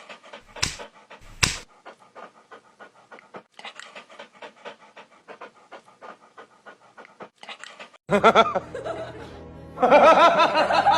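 Dog panting quickly and evenly, at about four to five breaths a second, after two sharp knocks at the start. About eight seconds in, louder pitched vocal sounds take over.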